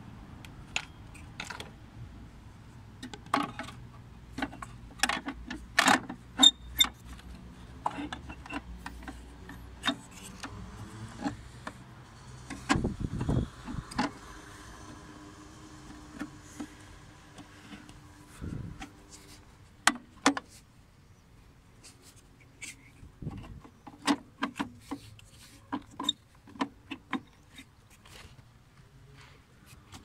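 Irregular clicks, taps and rubbing from hands handling a car's engine control unit and its plastic wiring connectors, with a few dull thumps.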